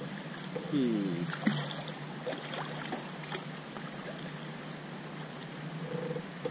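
Creek water trickling over a shallow rocky riffle, with short high chirps repeating throughout and a low falling call about a second in.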